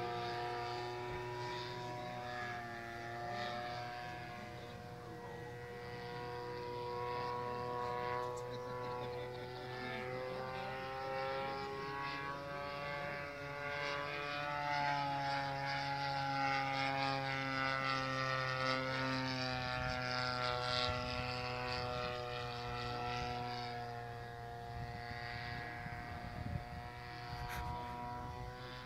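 Radio-controlled scale model of the Dormoy Bathtub flying past, its motor and propeller making a steady pitched drone that rises and falls in pitch. It is loudest around the middle, as the plane passes closest.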